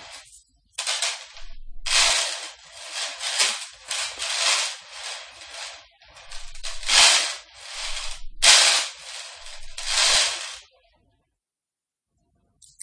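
Metal chains being handled and shaken, rattling and clinking in a run of bursts with short pauses between, stopping about two seconds before the end.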